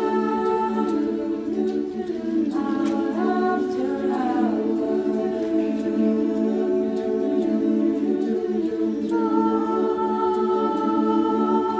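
Choir singing long held chords without clear words. The harmony moves about three seconds in and settles on a new chord about nine seconds in.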